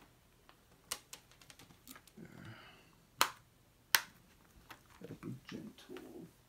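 Plastic multi-disc Blu-ray case being closed and handled: sharp plastic clicks, a smaller one about a second in, then two loud snaps about three and four seconds in, with soft handling rustle between.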